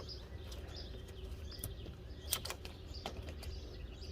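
A few light clicks and taps of hands handling brake parts, the sharpest about two seconds in. Faint bird chirps sound in the background over a low rumble.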